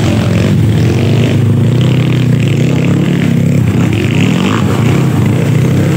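Dirt bike engines running and revving, their pitch rising and falling as the throttles are worked.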